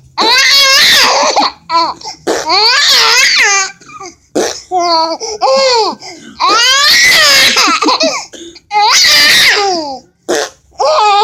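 Baby laughing hard in about five high, wavering bouts of one to two seconds each, with short breaths between them.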